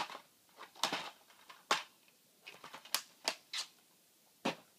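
DVD cases and cardboard slipcovers being handled: a string of short scrapes, slides and clicks of plastic and card.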